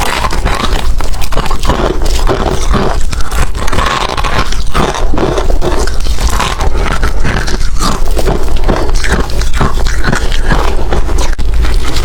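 Hard ice being bitten and chewed close to the microphone: rapid, irregular crunching and cracking without a break.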